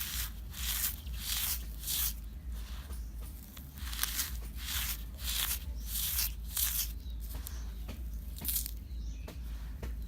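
Dry, dusty sand crumbling in a series of short crunchy bursts, with a lull about three seconds in and sparser bursts near the end. A steady low hum lies underneath.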